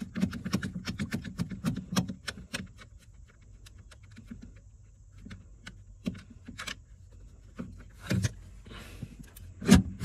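Ratchet with a 10 mm socket clicking in quick strokes as it backs out a freshly loosened accelerator pedal mounting bolt. The clicks then thin out, with a couple of louder knocks near the end.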